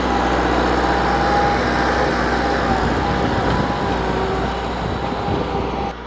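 Massey Ferguson 375 tractor's diesel engine running steadily under load while pulling a spring-tine cultivator through dry soil.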